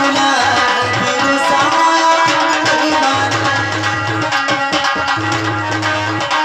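Dholak and harmonium playing folk devotional music, with held harmonium notes over repeated drum strokes.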